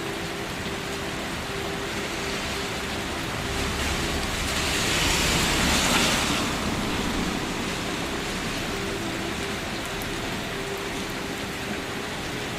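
Steady rain falling, an even hiss that swells louder for a few seconds in the middle before settling back.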